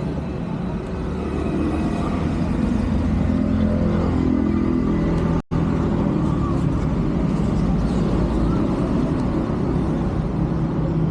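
A motor vehicle's engine running close by amid street traffic, a steady low hum. The sound cuts out for an instant about five and a half seconds in.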